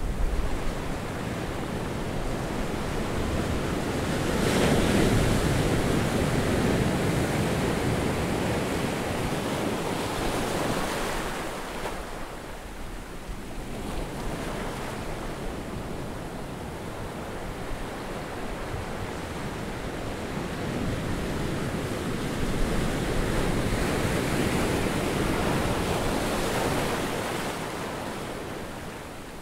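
Surf breaking on a sandy beach: a steady rushing wash that swells into a long, loud surge about four seconds in and another past twenty seconds, quieter in between.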